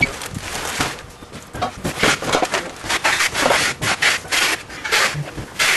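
Large cardboard boxes scraping and sliding across a truck trailer's floor: irregular rubbing strokes with a few knocks.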